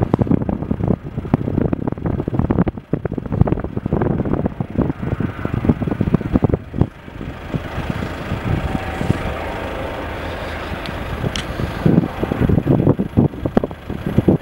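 Wind buffeting the microphone in uneven gusts, over the steady drone of a distant police helicopter in flight. The gusts ease for a few seconds about halfway through.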